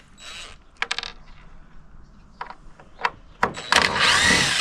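Cordless drill-driver motor whining as it backs out screws, its pitch sweeping up and down, in a loud run near the end. Before that come a short burst and a few clicks and knocks of the screws and wood being handled.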